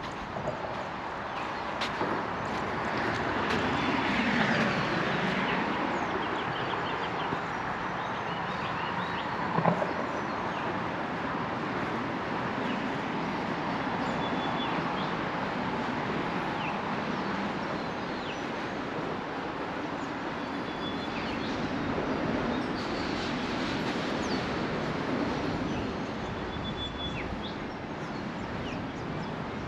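Road vehicles passing nearby, each rising and fading, one about four seconds in and another near the end, over a steady background. Short high bird notes repeat every several seconds, and a single sharp knock sounds about ten seconds in.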